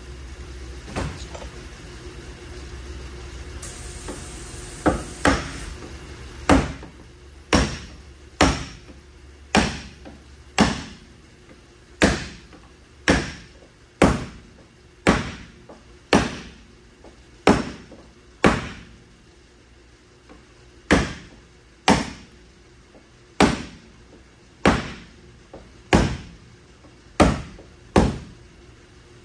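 Repeated hammer blows on the sheet-metal body of a van, about one a second with a few brief pauses, each blow ringing briefly.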